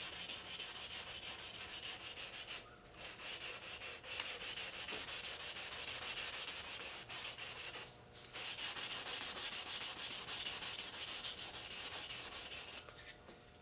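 320-grit sandpaper rubbed by hand in quick back-and-forth strokes over the puttied seam on the rim of a plastic model saucer, a steady scratchy rasp. It breaks off briefly about three and eight seconds in and stops just before the end.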